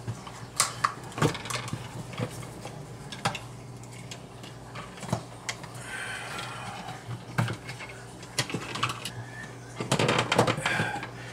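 Irregular clicks and knocks of a blue plastic electrical box being handled and pushed into a hole cut in the wall, with cable wires fed into it. A scraping rustle comes about six seconds in and a quick run of clicks near the end, over a steady low hum.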